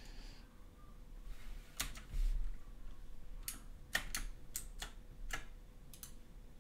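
Scattered clicks of a computer keyboard and mouse, about ten of them, irregularly spaced from about two seconds in. There is a dull knock a little after two seconds.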